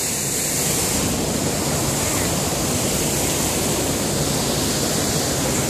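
Steady rushing of turbulent water, an even, unbroken noise.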